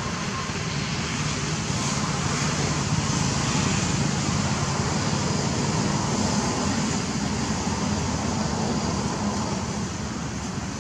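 Steady outdoor background noise: a low rumble under an even hiss, swelling slightly in the middle, with no distinct separate sounds.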